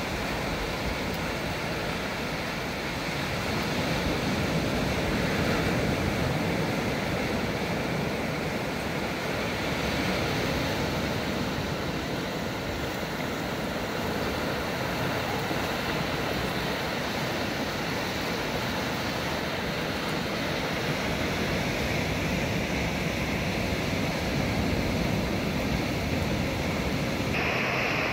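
Ocean surf breaking and washing over a rocky shore, a steady rush of waves, with wind on the microphone.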